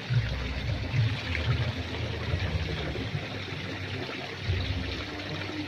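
Steady bubbling and splashing of water at a koi pond's surface, stirred by air stones fed by a Jebo P30 electric aerator pump, with irregular low rumbles now and then.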